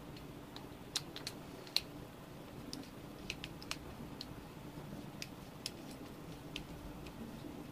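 Small, irregular clicks and ticks from small plastic and metal parts being handled while a 12 V cigarette-lighter plug is assembled onto a charging lead, over a faint steady hum.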